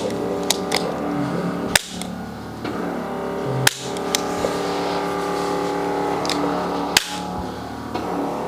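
Sharp clicks of a spring-loaded chiropractic adjusting instrument firing, about seven at irregular intervals, three of them louder than the rest. Background music with sustained tones plays underneath.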